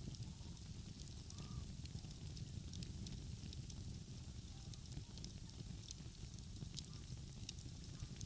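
Wood fire crackling, with sparse sharp pops and clicks over a steady low rumble.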